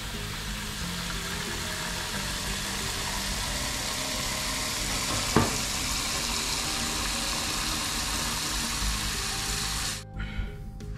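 Tap water pouring into a metal pot of parboiled pork trotters, a steady splashing hiss as the pot fills for a change of water, cut off about ten seconds in. One sharp knock about halfway through.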